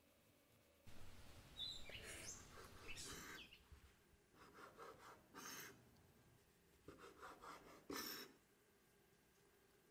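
Santoku knife cutting the crusts off white sandwich bread on a wooden cutting board: crackly scraping strokes through the crust with the blade knocking the board, in three separate bursts.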